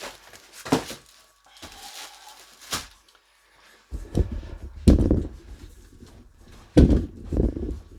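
Cardboard packaging of a twin pack of bumper plates being pulled open and the plates handled: a few sharp clicks, then from about four seconds in heavy thuds and rustling, with two loud knocks.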